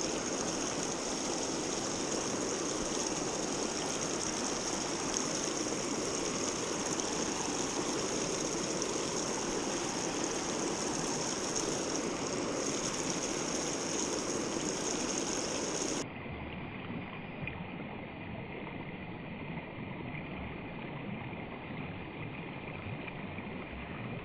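Small rocky mountain stream rushing steadily through a riffle. About two-thirds of the way in the rush cuts suddenly to a quieter, duller one.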